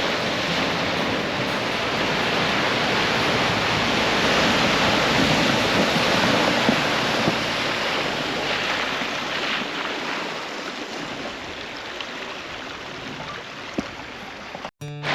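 Rushing water: a steady noise that swells in the middle and eases off toward the end, then cuts off abruptly.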